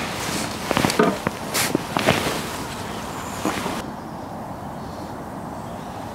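Pond water splashing and running off a landing net as it is lifted out, with several sharp knocks and rattles. About four seconds in it gives way to a quieter, steady open-air background.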